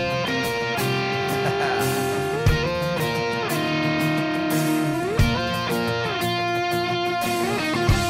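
Rock music with an electric guitar holding long notes that bend and slide, over a slow beat with a drum hit about every two and a half seconds.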